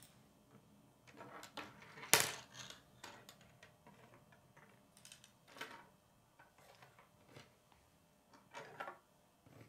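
Plastic K'nex rods and connectors clicking and clattering against each other and the wooden tabletop as they are handled, with the loudest clack about two seconds in and smaller clicks scattered through the rest.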